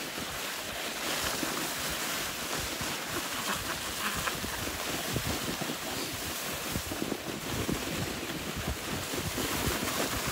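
Sledge sliding down a packed snow track: a steady hiss of the runners on the snow mixed with wind rushing over the microphone.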